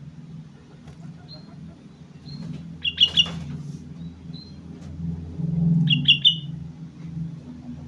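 Sooty-headed bulbul calling: two short bursts of quick chirps, about three and six seconds in, with a few faint short whistles between. A low steady hum runs underneath and swells for a moment around five to six seconds in.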